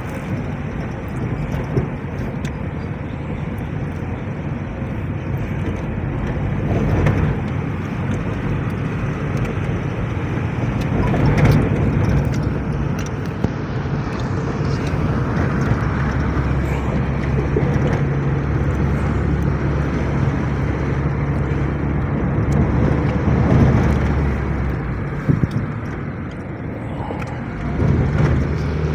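A car being driven down a steep mountain road: a steady engine hum with road noise, and a few brief louder bumps.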